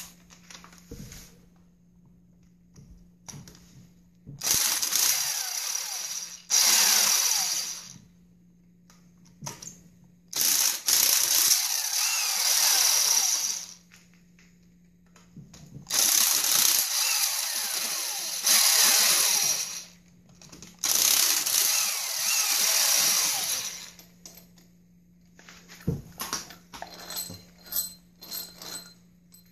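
A power tool runs in five bursts of about two to four seconds each, spinning out cylinder head bolts with an E14 Torx socket. A few light metal clicks follow near the end.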